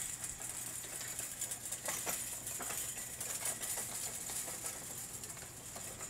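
Electric motor salvaged from a wheelchair humming steadily as it drives a homemade remote gate opener, with light irregular clicks and ticks from the cable-and-pulley drive.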